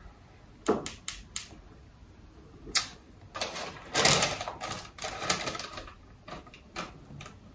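Clicks and rustling from a plastic setting spray bottle and its paper label being handled: a few sharp clicks in the first three seconds, then a longer stretch of rustling.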